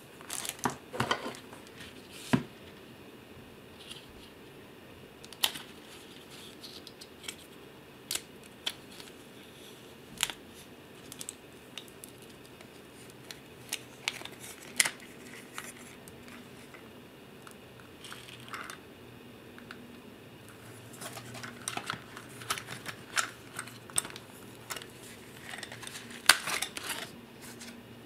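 Handling of a clear plastic waterproof phone pouch and its braided lanyard: irregular small clicks, taps and plastic rustles, scattered through and busier near the end.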